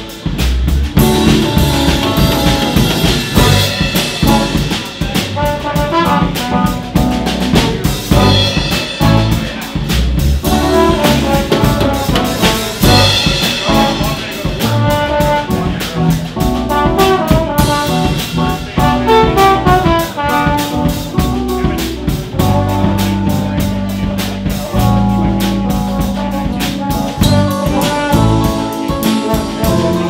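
Live band playing: a trombone carries the melody over a drum kit and bass guitar.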